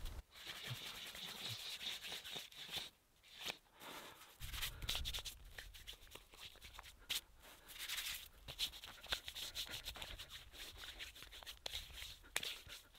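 Snow scooped by hand and rubbed over bare skin: irregular scrubbing, crunchy strokes with short pauses between them.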